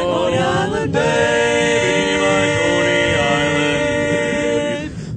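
Barbershop quartet singing a cappella in close harmony, ending the song on a long held chord. The lower voices move beneath it before it fades out near the end.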